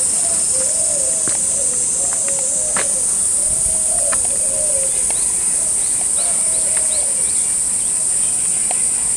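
Loud, steady high-pitched drone of summer cicadas. Under it, a low wavering call repeats several times, with a few light clicks.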